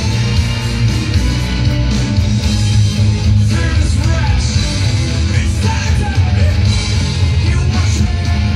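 ESP electric guitar played along with a loud rock backing track, with bass and drums steady underneath.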